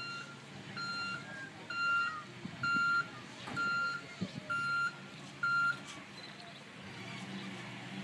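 Van's reversing alarm beeping about once a second, a high steady tone, stopping a little under six seconds in. The van's engine runs underneath and grows slightly louder near the end as the van pulls away.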